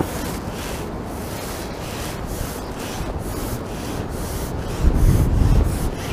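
Gusty wind buffeting the microphone with a rough, rustling noise, and a heavier low rumbling gust about five seconds in.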